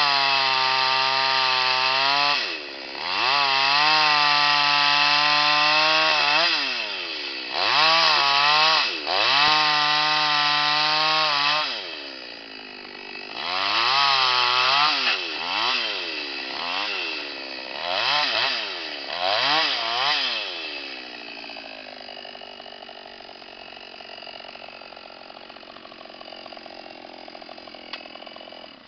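Oleo-Mac GS650 two-stroke chainsaw running at high revs while ripping a log lengthwise into boards. The throttle is let off and opened again several times, and for the last several seconds the saw idles.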